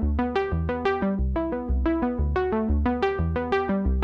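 Background music: an electronic keyboard playing a steady run of short notes, about four a second, over a bass line.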